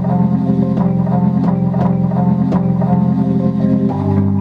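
A chopped sample with bass and electric-piano notes, played back from a Maschine MK3 pad controller as music. The sustained chord changes near the end.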